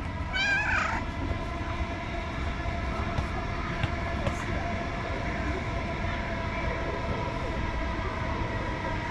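Steady low rumble of a distant vehicle with a constant mechanical whine on top, holding even throughout. A cat gives one short, wavering meow just after the start.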